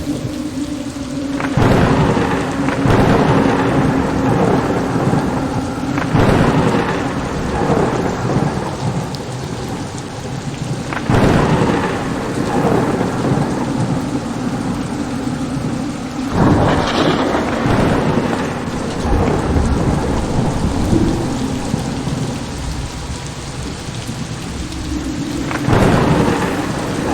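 Thunderstorm sound effect: steady, heavy rain with rolls of thunder breaking in about five times.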